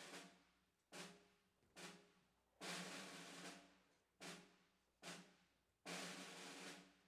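A drum beating a steady marching cadence, faint: a roll of just under a second, then two single strokes, repeating about every three seconds.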